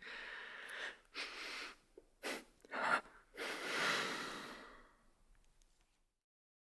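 A woman's ragged breathing while crying: about five breaths. Two drawn breaths are followed by two short, sharp catches between about two and three seconds in, then a long breath that trails away.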